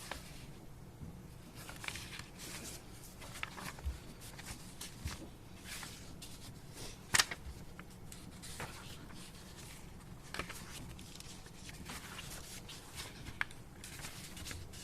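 Sheets of a paper document being handled and leafed through, with soft rustles and scattered small clicks and one sharper tap about seven seconds in.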